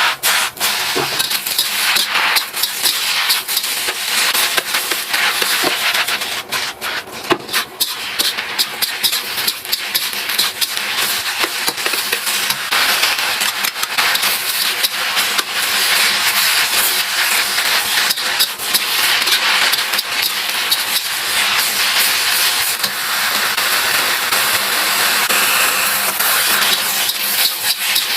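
Food frying in hot oil: a steady sizzle, thick with small crackles and pops.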